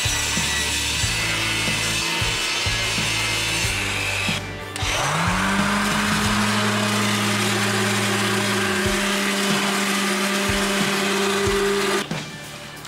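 Benchtop table saw running through plywood. After a short break, an electric sander spins up with a rising whine and runs steadily against a plywood board, stopping near the end.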